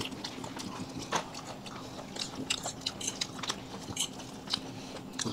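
Close-up eating sounds: people chewing and smacking on fried chicken, cake and noodles, with forks tapping on plates. They make many short, irregular clicks over a faint steady hum.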